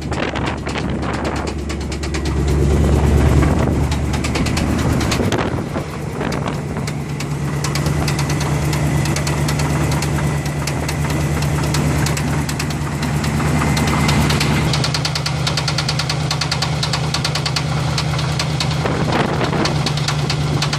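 Chevrolet 305 small-block V8 running near idle with a rapid, persistent knock over the steady engine note, briefly getting louder about two to three seconds in. The knock is a fault that has not yet been diagnosed.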